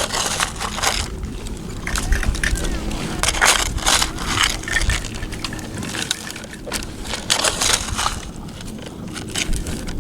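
Beach stones crunching and scraping against each other in a string of irregular clatters on a rocky shore.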